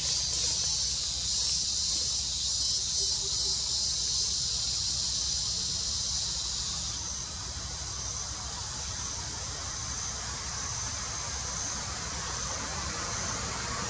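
Insect chorus: a steady high buzz that drops off sharply about seven seconds in, leaving a fainter high trill, over a low steady rumble.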